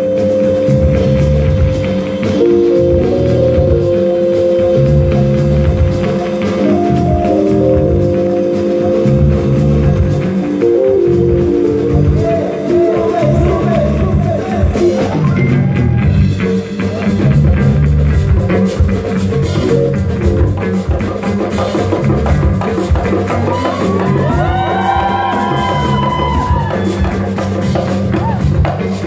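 Live band playing: drum kit and bass keep a steady groove under held electric guitar and keyboard notes. A voice sings wavering lines over it in the second half.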